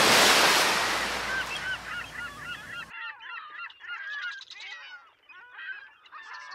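A loud rushing hiss that fades and cuts off abruptly about three seconds in, over and then followed by a flock of birds giving quick, overlapping honking calls.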